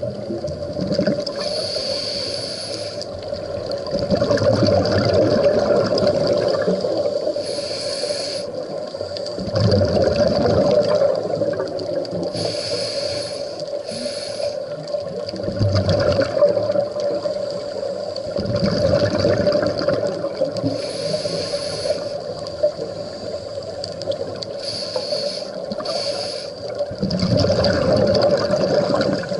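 Scuba regulator breathing heard underwater: a hissing inhalation through the demand valve, then a gurgling rush of exhaled bubbles, repeating about every five to six seconds over a steady drone.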